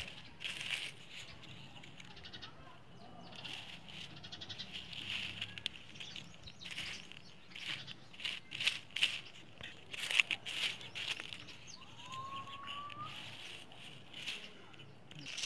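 Outdoor sounds with repeated animal calls, many short clicks and knocks, and a short rising whistle about twelve seconds in.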